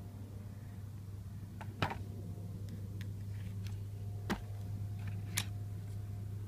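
Metal hand tools clicking against an alternator's metal housing and the bench as a ratchet and socket are handled. There are a few sharp clicks, the loudest about two seconds in and two more near four and a half and five and a half seconds, with lighter ticks between, over a steady low hum.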